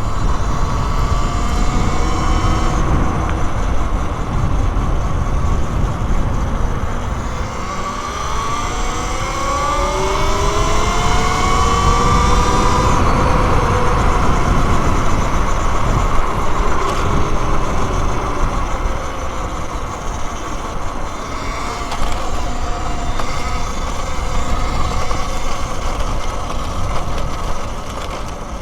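Wind rushing over the microphone while riding a Talaria Sting R electric dirt bike. The electric motor's whine rises in pitch as the bike speeds up about eight seconds in, then holds steady.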